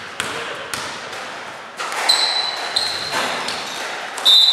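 Basketball bounced a few times on a gym's wooden-sprung court floor during the first second, then sneakers squeaking on the court as players jostle along the lane; the sharpest, loudest squeak comes near the end.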